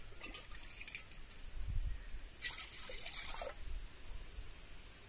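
Water splashing and trickling in an earthenware clay pot as water is poured in, in two short bursts about two seconds apart.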